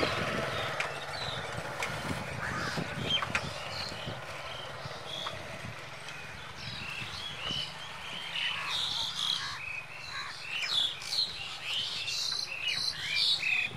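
Birds chirping again and again, busier in the second half, over a faint low steady hum.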